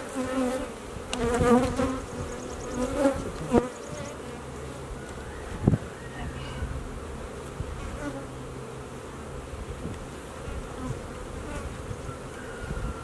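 Honey bees buzzing around an open hive. In the first few seconds, bees flying close give a buzz that wavers in pitch; after that there is a steadier low hum of the colony. A sharp knock about three and a half seconds in, and a louder one near six seconds, come from the hive tool working the wooden hive body.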